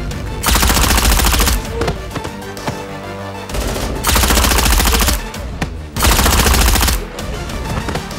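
Three bursts of rapid machine-gun fire, each about a second long, over background music.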